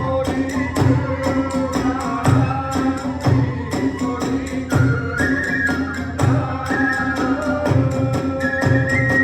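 Hiroshima kagura accompaniment: small hand cymbals clash in a fast, steady beat, a large drum strikes about once a second, and a bamboo flute plays a held melody above them.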